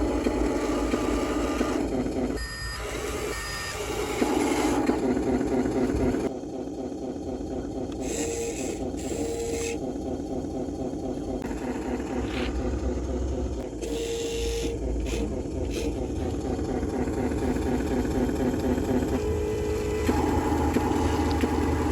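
Huina radio-controlled construction model running with a steady mechanical whir. Short electronic beeps come twice a few seconds in, and there are a few more brief tones later on.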